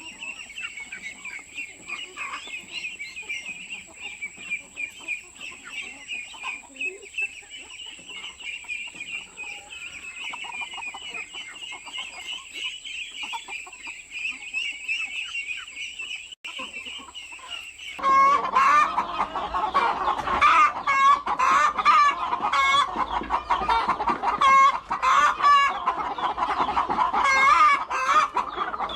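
Flock of hens clucking. For the first two-thirds the clucking is faint under a steady high-pitched trill; then it turns abruptly louder and closer, with dense, overlapping clucks to the end.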